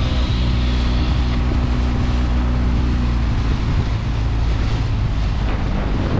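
A 20 hp outboard motor running steadily with the boat under way, with wind noise on the microphone.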